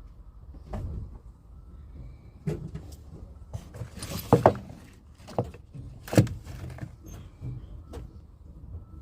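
A run of irregular knocks and clatter, loudest a quick pair of knocks about four seconds in and another sharp knock about two seconds later.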